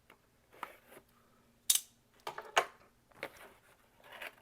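A knife cutting open a cardboard box: a run of short scrapes and clicks, with one sharp click about a second and a half in.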